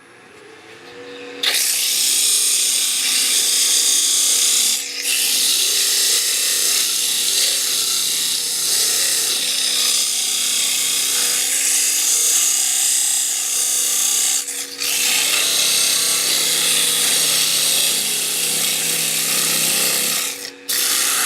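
Wood lathe motor spinning up with a steady hum, then 80-grit sandpaper held against the spinning wooden spindle: a loud, even rubbing hiss that breaks off briefly twice and once more near the end.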